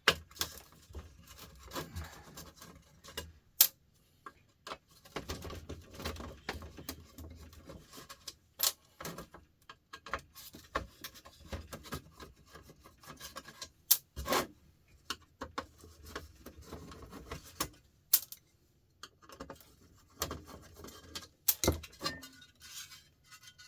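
Hand dismantling of a plastic-and-metal light fixture: screwdriver work on small Phillips screws with rubbing and scraping, broken by scattered sharp clicks and clinks of parts.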